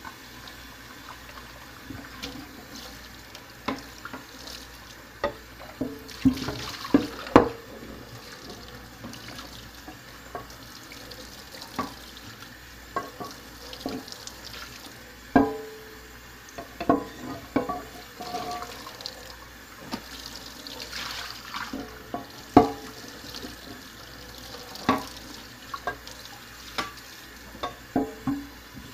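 Water running from a kitchen tap into a stainless-steel sink, with repeated sharp clinks and knocks as dishes are handled in it.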